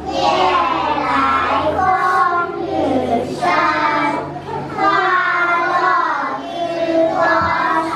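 A small group of kindergarten children chanting a rhyme together in a sing-song voice, in phrases of a second or two.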